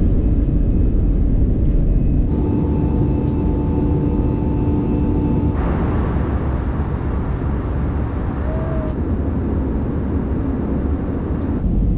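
Airliner cabin noise: the steady, deep rush of jet engines and airflow heard from inside the cabin. For a few seconds near the start a steady two-tone hum sits over it, and the noise changes character abruptly a few times.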